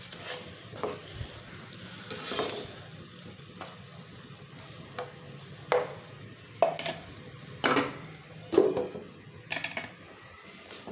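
Chicken pieces frying in oil in a non-stick frying pan with a steady sizzle, stirred with a spoon that scrapes and knocks against the pan several times, more often and louder in the second half.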